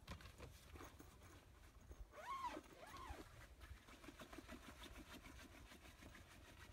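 Near silence: faint ticks and rustles from a rooftop tent's fabric and fittings being handled, with two short tones about two seconds in, each rising and then falling.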